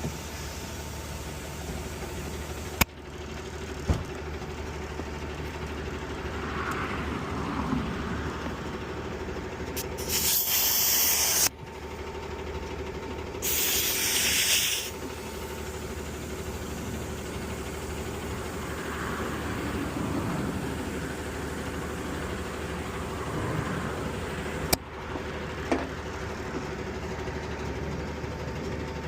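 Compressed air hissing in two loud bursts of about a second and a half each, about ten and thirteen and a half seconds in, over a steady running engine, with a few sharp clicks.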